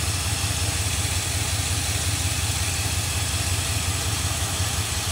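A 2002 Chevrolet Silverado 2500HD's 6.0L gasoline V8 idling with a steady low rumble. One cylinder is misfiring because its ignition coil is failing.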